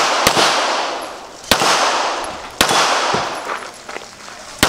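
Four pistol shots, spaced about one to two seconds apart, each followed by a long fading echo.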